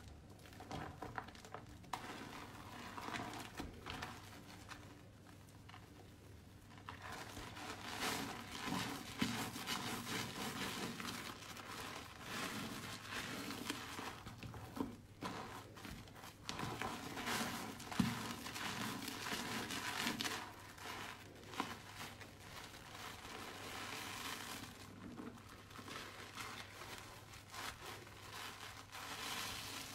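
Soaked, mushy soap squeezed and squished by fingers: a dense, wet crackling and crinkling. It is quieter at first, grows louder about seven seconds in, and eases off near the end.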